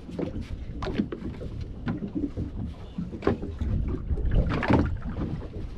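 Water slapping against the hull of a small open fishing boat lying at rest with its outboard raised: irregular splashes and knocks over a low rumble.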